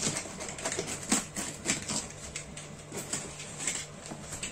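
Utility knife slicing through packing tape on a cardboard box: a string of irregular scratchy clicks and crackles.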